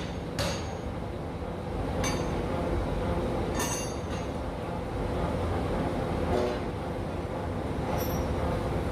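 A Massey power hammer delivers a last blow about half a second in, then its machinery keeps running with a steady low rumble while a few faint metallic clinks sound.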